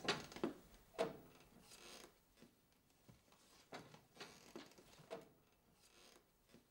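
Faint, scattered light knocks and clicks, a few in the first second and softer ones later, like objects being handled.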